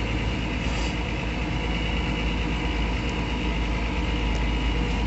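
Tractor engine running steadily at low speed, heard from inside the closed cab during cane loading: a deep, even drone that does not change.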